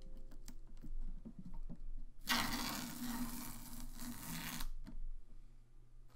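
Painted canvas panel being handled and shifted on its stand: a few light knocks and clicks, then about two seconds of scraping.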